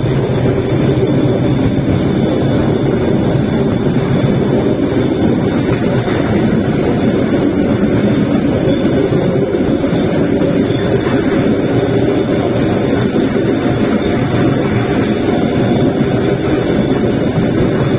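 Bamboo train (norry) running along its narrow-gauge track: its motor and its wheels on the rails make a loud, steady rumble throughout.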